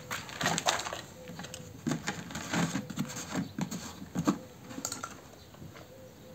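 Plastic petrol canister and its screw cap being handled and unscrewed, ready to fill a chainsaw's fuel tank: a scattered run of small clicks and knocks.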